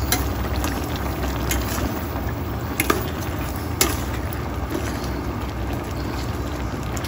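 Slotted metal spatula stirring chicken pieces through simmering soy-ginger sauce in a metal pot. There are sharp clinks of the spatula against the pot, a double one about three seconds in and another a second later, over a steady low rumble.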